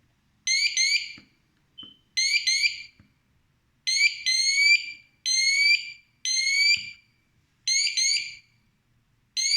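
Siterwell GS559A wireless smoke alarm sounding its test alarm, a string of short bursts of high, rising chirps. The test button is being held to check that the paired alarms are interconnected.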